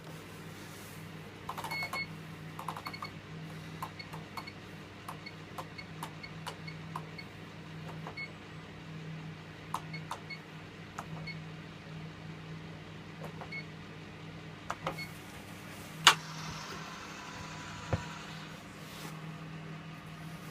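Electrolux W455H commercial washing machine at the start of its Warm 60 programme: a steady hum with repeated clicks and short high beeps, then a loud clunk about 16 seconds in followed by a few seconds of hissing.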